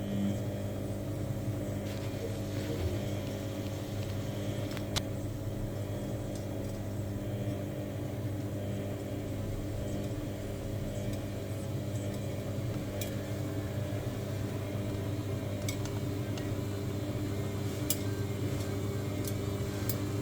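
Samsung washing machine running with a steady motor hum, with a few light clicks or ticks, mostly in the last few seconds.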